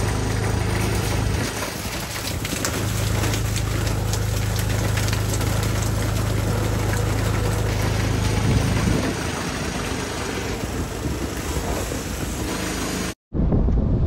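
A small engine running steadily under a constant hiss. Its low hum fades out about nine seconds in while the hiss goes on, and the sound breaks off abruptly for a moment about a second before the end.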